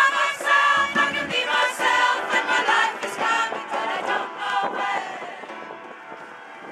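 Choir singing with upright piano accompaniment, growing quieter about five seconds in.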